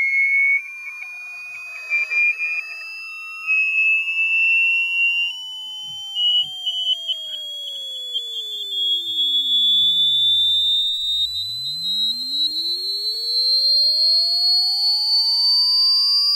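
A pure sine-wave test tone sweeping steadily upward in pitch, from about 2,200 Hz to about 4,800 Hz: a single shrill, rising whistle with no other notes.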